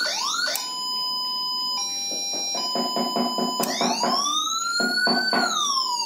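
CJB100BD electronic siren through a plain horn loudspeaker, switched between tones. Quick repeating rising chirps for about half a second give way to steady held tones that step down and back up in pitch. From just past the middle, a slow wail rises and then starts to fall.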